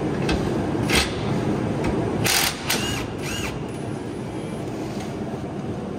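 Cordless impact wrench hammering on a nut under a trailer axle, with a few sharp metallic clanks.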